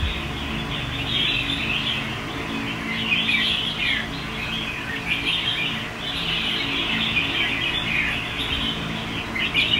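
Red-whiskered bulbuls chirping and calling almost without pause, in quick short notes, some falling in pitch. A faint low steady hum runs underneath.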